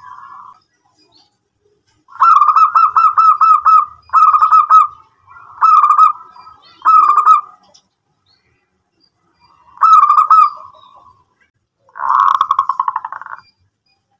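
Zebra dove (perkutut) cooing: loud phrases of rapid, evenly pulsed coos, about five notes a second, in four phrases close together, then a pause, one more phrase, and a buzzier final phrase near the end.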